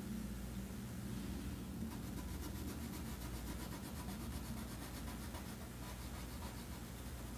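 Colored pencil shading on paper in quick, repeated back-and-forth strokes, a soft scratching rub, over a low steady hum.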